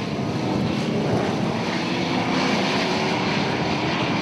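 A pack of V8 muscle race cars running hard together through a corner: several loud, overlapping engines at high revs.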